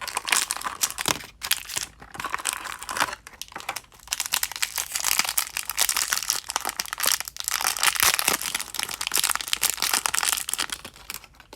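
Foil blind bags and cardboard packaging crinkling and tearing as they are handled and ripped open by hand, a dense crackle of many small clicks that keeps on with brief lulls.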